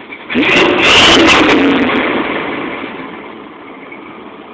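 Ford 5.0 HO V8 revved once, rising about a third of a second in and falling back over the next two seconds to a steady idle, heard through a custom H-pipe and Flowmaster mufflers with no catalytic converters.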